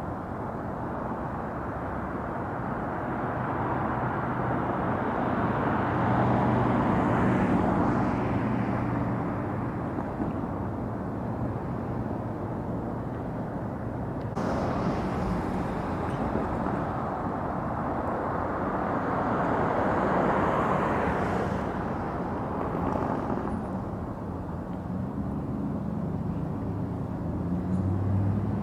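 Road traffic: vehicles passing by in two swells, one about six to eight seconds in and another around twenty seconds, over a steady low engine hum.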